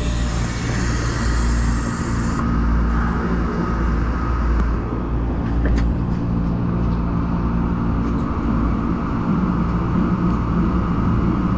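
Tokyo Metro Marunouchi Line subway train running: a steady low rumble of wheels on rail with faint motor hum. A hiss cuts off abruptly about two seconds in, and a few light clicks follow.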